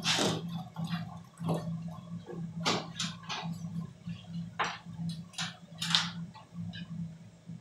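Irregular light clicks and taps, about nine of them, from hands working on the casing and parts of a ceiling-mounted air-conditioner unit, over a steady low hum.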